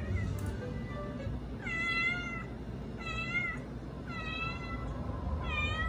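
Domestic cat meowing four times in a row, each meow about half a second long and about a second apart: a loud, insistent complaint for attention.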